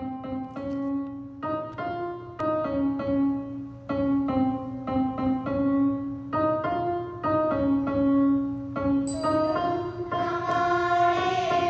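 Keyboard playing a slow melodic introduction one note at a time over a steady low drone. About nine seconds in, a brighter, fuller layer with a hiss joins in.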